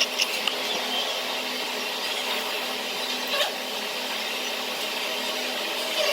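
Restaurant dining-room din: a steady noisy hum with a couple of sharp clicks, one just after the start and one about three and a half seconds in.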